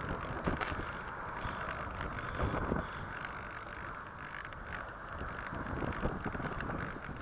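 Wind buffeting the microphone in uneven gusts, over a steady even hiss.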